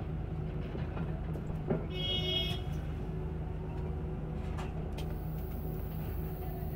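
Cabin sound of an Olectra K9 electric bus on the move: a steady low rumble with a faint motor whine rising in pitch. A knock comes just before two seconds in, then a short high-pitched tone.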